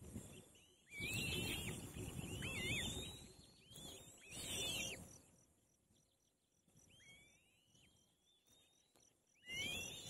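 Black-winged kite chicks begging at the nest: thin whistling calls that rise and fall, several in the first half and a quick run of short ones near the end. Bursts of rustling noise come between and under the calls in the first half.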